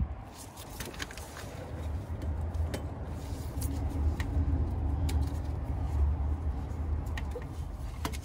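Scattered light clicks and taps from a serpentine belt and its released tensioner being worked off the pulleys by hand, over a steady low rumble.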